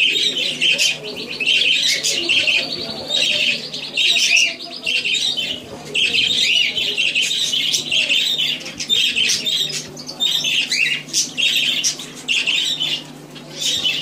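Budgerigar calling: a fast run of short, harsh chirps and squawks, a few each second, broken by brief pauses.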